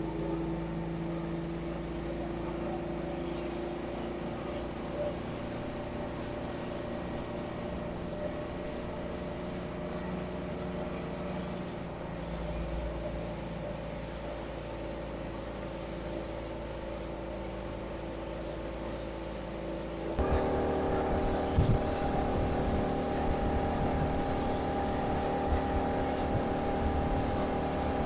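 Suzuki 200 hp four-stroke outboard running steadily at planing speed over the rush of water. About two-thirds of the way through, the sound jumps abruptly louder, with a higher set of engine tones.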